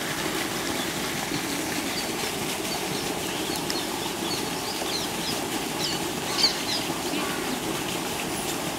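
Sliced onions frying in hot oil in a large iron kadai, a steady sizzle. Small birds chirp over it again and again, one call louder past the middle.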